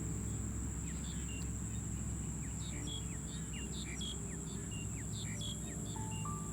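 Rice-field ambience: a steady high drone of crickets and other insects, with many short chirps and downward-sliding calls from birds over it, and a low steady hum underneath. Near the end a few held tones step up and down.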